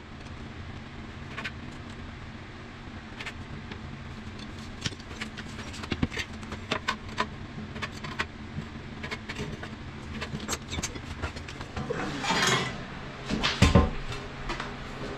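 Scattered light clicks and taps as a ceramic wall tile is handled, measured and marked, over a low steady hum. About twelve seconds in, a notched trowel scrapes tile adhesive, with a few knocks.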